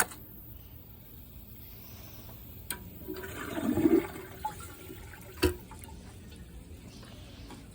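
Water running in a Project Source Pro Flush dual-flush toilet after a flush, with a louder swell of water about three to four seconds in. Three sharp clicks stand out over it.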